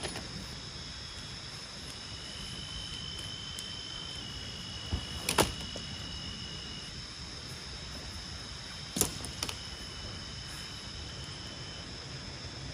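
Forest ambience with a steady high insect drone and a second, lower insect tone that comes and goes. A sharp knock sounds about five seconds in, and two more near nine seconds.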